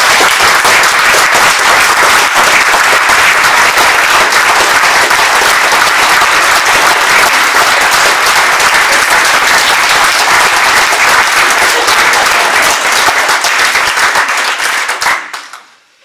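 A small audience applauding, dense steady clapping that dies away near the end.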